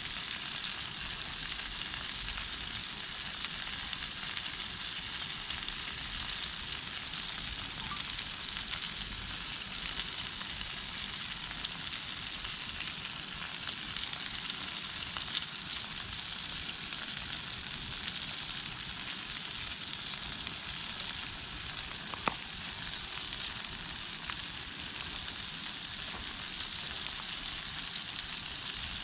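Formed meat sizzling over a campfire: a steady hiss with scattered small pops.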